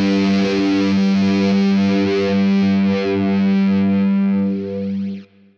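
A distorted electric guitar holding a final chord with a wavering, effects-laden shimmer as a song ends, cutting off abruptly near the end.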